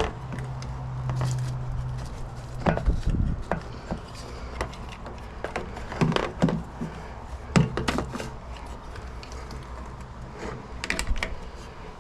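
Scattered knocks and clicks of hands working on a machine, with a low steady hum that stops about two seconds in.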